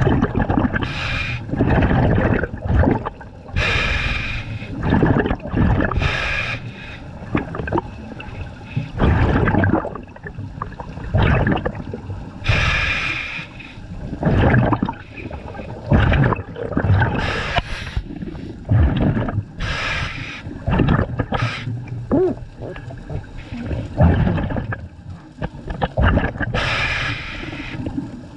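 Scuba diver breathing through a regulator underwater: a hiss on each inhale, then a gurgling rush of exhaled bubbles, in a slow repeating cycle every few seconds.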